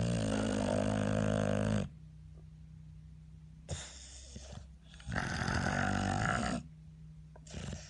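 English bulldog snoring: two long rasping snores about five seconds apart, each followed by a shorter, weaker breath.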